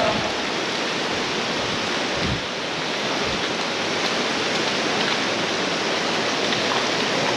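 Shallow creek water running over sandstone ledges and small cascades into pools, a steady rush, with a few low thumps about two to three seconds in.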